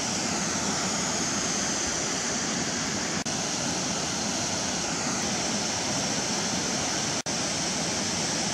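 Steady rushing of falling water from a waterfall, an even hiss that cuts out briefly twice.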